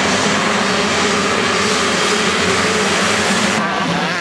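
A full field of motocross bikes accelerating hard off the start, many engines at high revs together. About three and a half seconds in the sound changes abruptly to fewer, more distant bikes.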